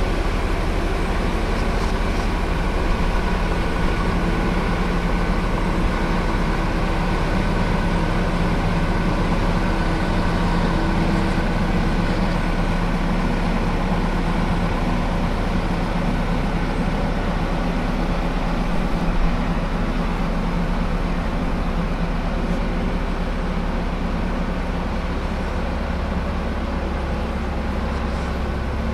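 Heavy vehicle engine running steadily, a continuous low drone that holds even throughout.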